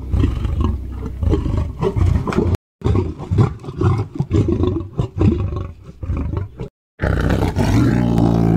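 A big cat roaring and growling deeply, the sound cut off suddenly twice by brief silences, with a more pitched, drawn-out roar near the end.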